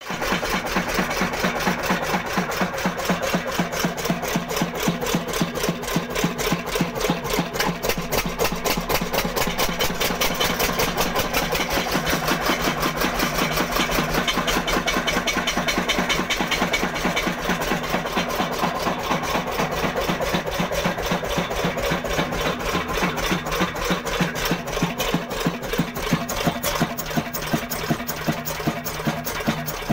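Old 10-horsepower stationary engine, dated 1975, running steadily with a fast, even firing beat.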